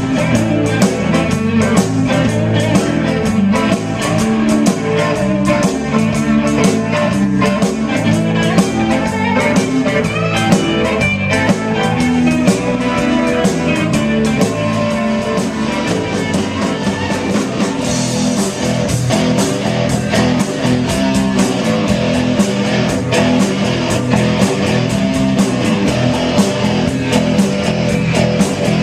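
Small rock band playing live: electric guitars over a drum kit keeping a steady beat, instrumental with no vocals.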